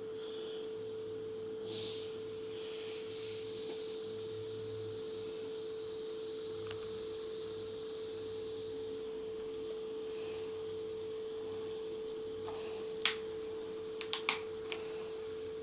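A steady one-pitch hum runs throughout while the screw cap of a plastic bottle of sparkling water is slowly twisted open, with a faint hiss of escaping gas. A few sharp plastic clicks come near the end.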